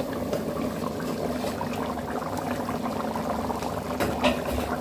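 Vanjiram (seer fish) head curry bubbling at a full boil in a freshly uncovered pot: a steady, dense bubbling.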